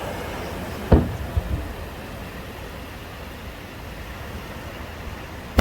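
Aerial firework shell bursting with a sudden low boom about a second in, followed quickly by two smaller booms, over a steady low rumble of crowd and ambient noise.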